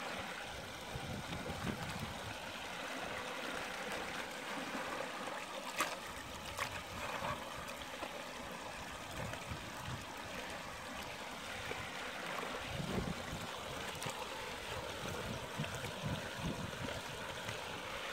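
Shallow creek water running and trickling steadily, with a couple of sharp clicks about six seconds in and a few low bumps.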